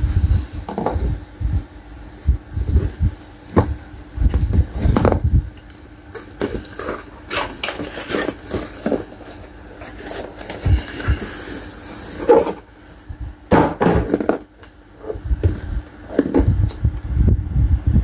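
Close-up handling noise: irregular clicks, knocks and low bumps of objects being picked up and moved about, with a brief rustling hiss partway through, over a faint steady hum.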